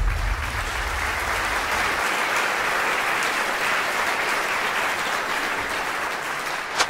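Audience applause, an even wash of clapping, with the low end of the preceding music dying away over the first two seconds.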